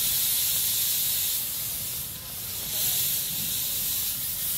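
12¼-inch gauge miniature steam locomotive hissing steam steadily as it stands with its train, easing off briefly about two seconds in.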